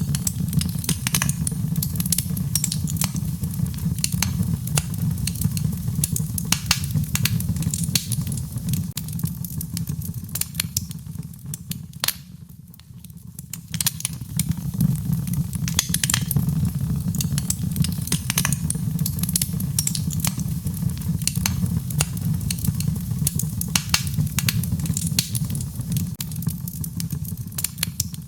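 Wood fire in a fireplace crackling, with frequent sharp pops over a steady low rumble. The crackling thins out and drops in level for a couple of seconds about halfway through.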